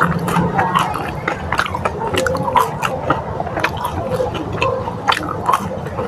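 Close-miked chewing of crispy fried chicken, with irregular sharp crunches.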